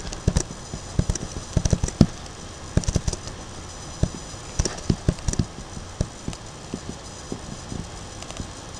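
Computer mouse clicking, irregular sharp clicks that come singly, in quick pairs or in short runs, as shapes and colours are picked in a photo-editing program.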